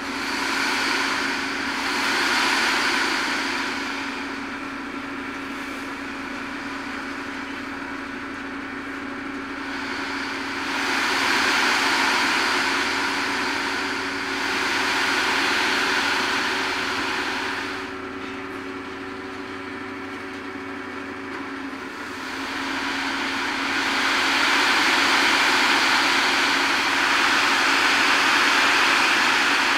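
Tipper semi-trailer unloading: the truck's engine runs steadily, driving the hydraulic cylinder that raises the tipping body. Several swells of louder rushing noise come as the load slides out the back.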